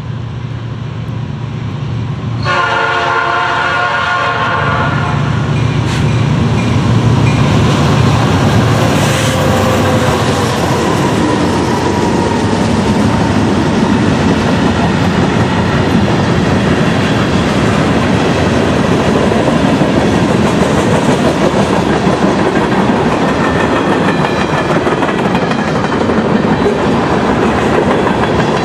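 A Norfolk Southern diesel freight train sounds its air horn in one blast lasting about two and a half seconds, starting a couple of seconds in, over the low rumble of the approaching locomotives. The locomotives then pass close by, and the freight cars follow with a steady loud clatter of wheels over the rail joints.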